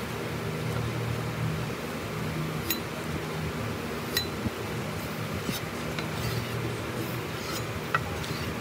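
Kitchen knife blade being stroked back and forth on a leather strop, with a few sharp metallic clinks from the blade, over a steady low hum.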